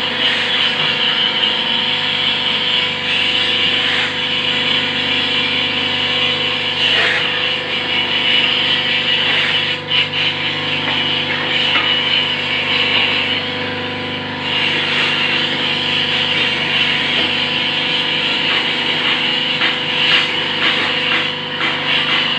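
Hydraulic paving-block press machine running: a steady electric-motor and pump hum with a hiss over it, and a few sharp knocks along the way.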